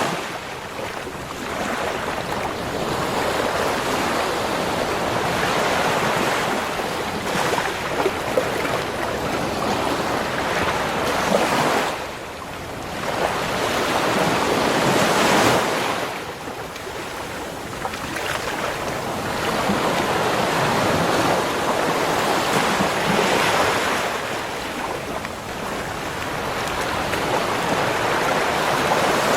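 Sea waves breaking and washing up a beach shore, the surf rising and falling in swells a few seconds apart.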